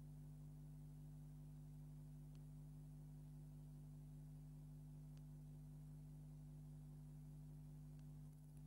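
Near silence: a faint, steady low electrical hum with light hiss and a few faint ticks.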